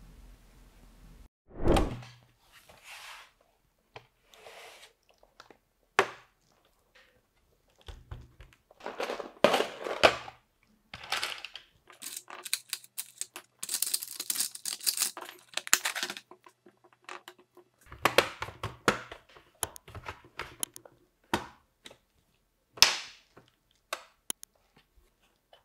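A Monster gaming laptop's plastic and metal case being handled and opened: a series of knocks and clicks, with busier stretches of rattling and scraping in the middle, and a sharp knock near the end.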